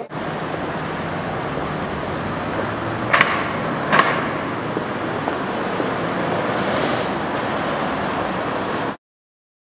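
Street traffic: cars driving past with a steady noise of engines and tyres, and two sharp clacks about a second apart roughly three seconds in. The sound cuts off suddenly near the end.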